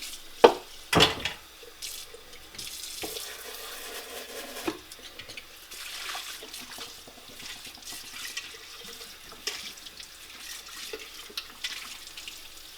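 Kitchen tap running into a sink as plastic juicer parts are rinsed under it, with two loud knocks of the parts against the sink about half a second and a second in, and a few lighter knocks after.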